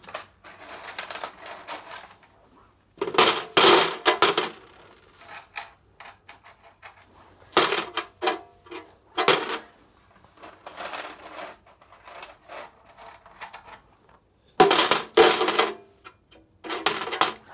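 Coins clattering and jingling against metal as they are handled in the coin box of an old mechanical slot machine, in several separate bursts. The loudest bursts come about three seconds in and again about fifteen seconds in.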